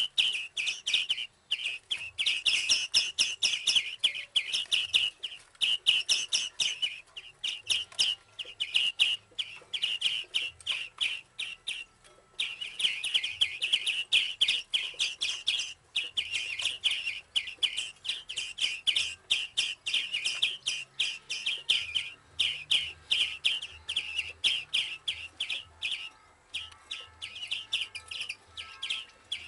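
Hand-raised small birds chirping insistently: rapid, high, repeated calls, several a second, that break off briefly a couple of times.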